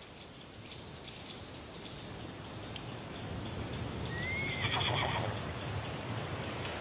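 A horse whinnying briefly about four to five seconds in, over a low, steady background noise.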